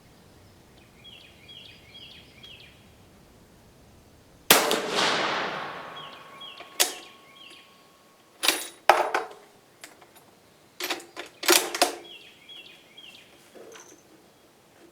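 A single shot from a Dutch Beaumont 11.3 mm black-powder-era service rifle about four and a half seconds in, with a long echoing tail, followed by a run of sharp metallic clicks and clacks as the bolt is worked. Small birds chirp faintly.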